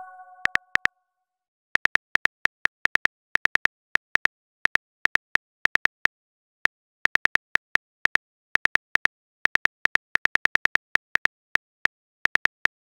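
Phone keyboard typing sound effect: irregular runs of short clicks, a few a second, with brief pauses. The tail of a message chime fades out right at the start.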